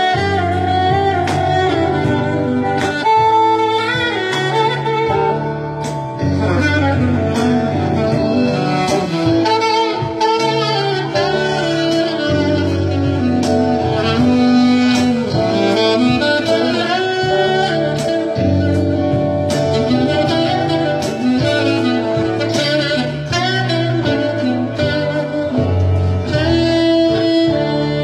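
Live band music: a saxophone plays the lead over electric guitar, a stepping bass line and a steady beat.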